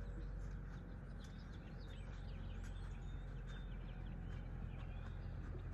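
Small birds chirping in short, repeated calls over a steady low rumble of outdoor background noise.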